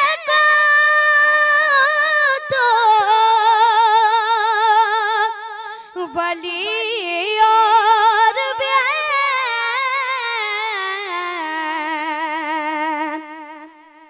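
A boy singing a manqabat (Urdu devotional song in praise of Ali) unaccompanied into a microphone, holding long notes with heavy vibrato. The melody sinks lower in the second half and the voice fades out near the end.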